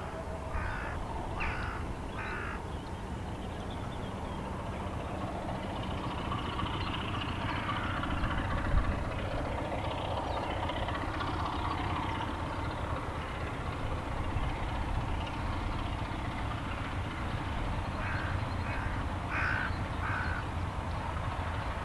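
Crows cawing in short runs of harsh calls, a few in the first couple of seconds and another run near the end, over a low steady rumble.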